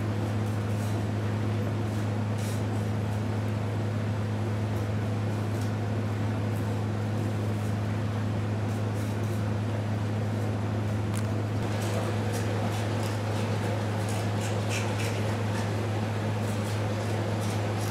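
A steady low hum, with faint scrapes and ticks from a knife skinning a crocodile; the knife sounds thicken in the last six seconds or so.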